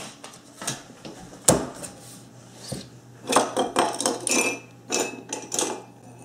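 Pens clicking and rattling against each other and a desk pen cup as a hand rummages through them, in a quick run of clatters over the second half. Earlier there are a few separate knocks, the loudest a sharp one about one and a half seconds in.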